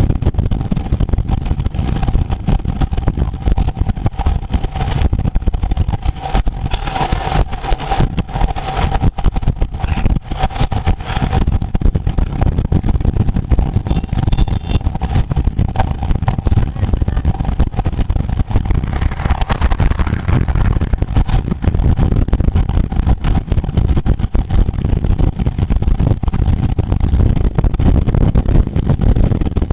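Heavy wind buffeting on the microphone of a camera moving at road-race speed on a bicycle, a gusting rumble under a steady mid-pitched hum, with a brighter rush of noise for several seconds early on.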